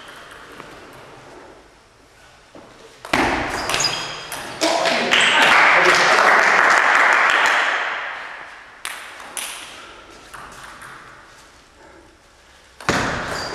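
Celluloid-type table tennis ball clicking in quick knocks off bats and the table, in clusters as rallies start. A loud noisy rush lasts a few seconds in the middle.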